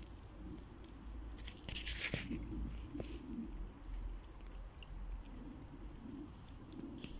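Faint rustling and scuffing from a person moving about at the edge of a small stream, over a low rumble of phone handling, with a brief louder rustle about two seconds in and a few faint high chirps.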